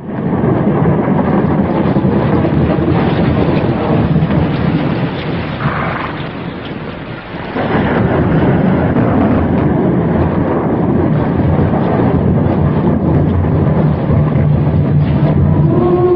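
Thunderstorm: a steady rush of heavy rain with rolling thunder. It eases about six seconds in and swells again at about seven and a half.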